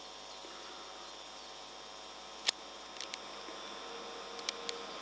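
Outdoor railway-station ambience: a steady faint hum and high insect chirring, broken by a few sharp clicks, the loudest about halfway through. Near the end a soft rush starts to build as the distant electric train approaches.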